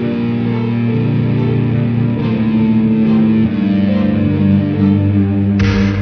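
Background music led by guitar with an effects-processed, slightly distorted tone, holding sustained chords that change every second or so.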